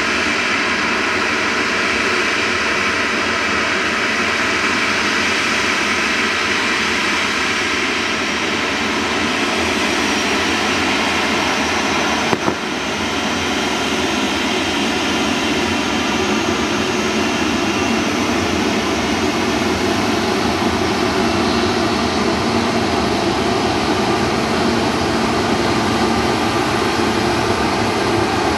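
Jet airliner engine noise: a loud, steady rush. A brief click comes about twelve seconds in, after which the sound sits lower.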